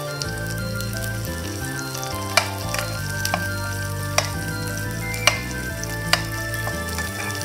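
Garlic, onion, ginger and lemongrass sizzling in hot oil in a pan, stirred with a metal spatula that clicks sharply against the pan several times.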